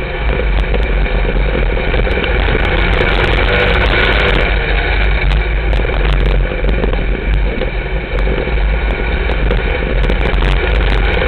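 Dirt-track sportmod race car's engine running loud and steady, heard from inside the cockpit.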